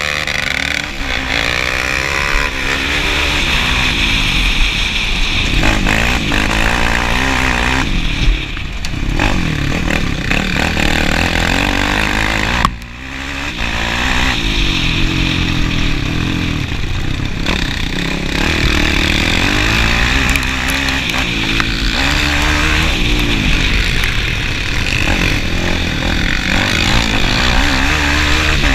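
Sport quad engine revving up and falling back again and again as the rider accelerates and shifts along a dirt track, with a brief sharp drop in engine sound about halfway through.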